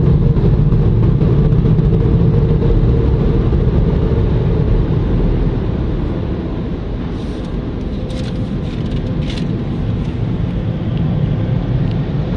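Express car wash dryer blowers running as a steady loud rush with a faint hum, heard from inside the car as it rolls out of the tunnel; the level eases off somewhat about halfway through. A few light ticks sound around the middle.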